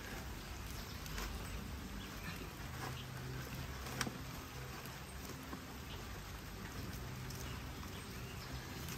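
Faint light drizzle pattering, with a few small clicks, the sharpest about four seconds in.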